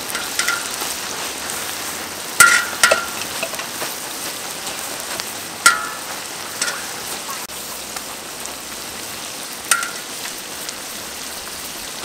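Hot oil sizzling steadily in a wok of deep-frying insects and leaves, with a few sharp pops or clinks standing out, the loudest about two and a half seconds and six seconds in.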